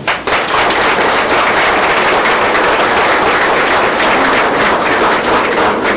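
Crowd applauding: steady, dense clapping that starts just after the speech ends and fades near the end.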